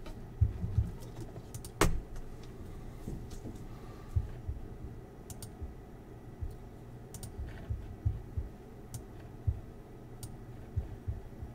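Irregular computer keyboard keystrokes and mouse clicks, scattered and unhurried, with one sharper click about two seconds in.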